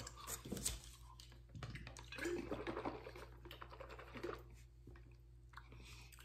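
Faint eating and handling noises: chewing, with light clicks and rustles as a plastic shaker bottle is picked up and handled.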